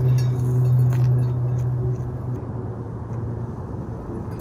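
Hot water trickling from a gooseneck kettle onto coffee grounds in a paper-filtered pour-over dripper, over a steady low hum that eases off slightly about halfway through.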